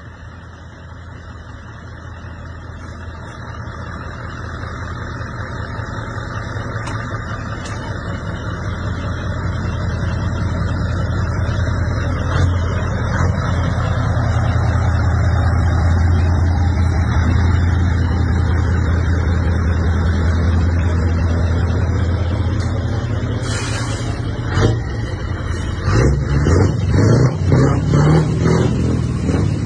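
Scania V8 diesel truck engine running, getting steadily louder over the first fifteen seconds or so. A short hiss comes about three-quarters of the way through. Near the end the engine's note turns louder and throbs at several beats a second.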